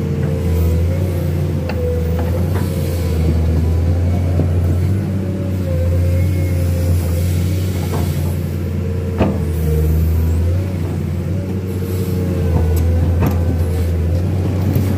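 Excavator's diesel engine running steadily under load, with a wavering hydraulic whine, as the bucket drags a steel pipe sled through deep mud. A few short clanks from time to time.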